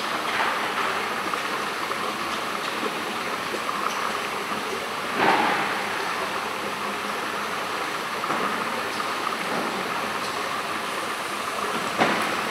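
Steady rushing of water in an indoor saltwater fishing pond, with a brief louder swell about five seconds in and a short sharp sound near the end.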